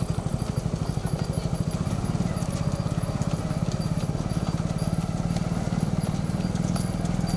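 Several motorcycles ridden slowly in low gear, their engines puttering in a fast, even beat of about ten pulses a second.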